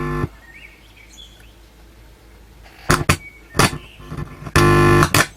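Music played through a Quad 303 power amplifier into a speaker, cutting in and out in short loud bursts as the input signal connection is made and broken: one at the start, two brief ones around three seconds in, and a longer one near the end. This is the channel that works, reproducing the input on a reduced mains supply.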